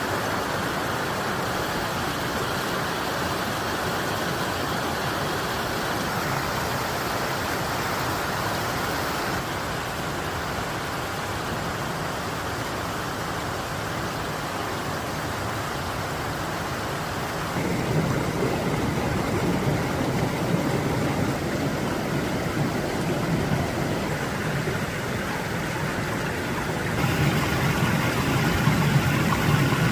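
Mountain stream rushing over rocks in a steady, even wash of water noise. It steps up louder and deeper about two thirds of the way through, and again near the end.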